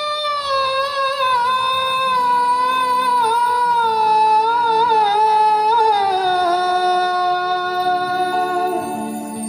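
A singer holding one long note in a Hindi song with slight wavering, gliding down to a lower note about six seconds in, over steady held accompaniment notes.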